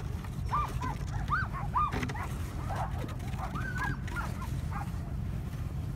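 A hitched sled-dog team yelping and barking, short high calls in quick succession that thin out after about four seconds, over a steady low rumble.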